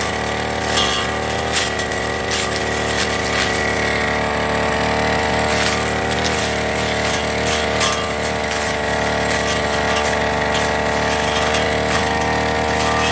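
Backpack brush cutter's small petrol engine running steadily under load as its blade cuts through thick alang-alang grass, with frequent sharp ticks from the blade striking stalks.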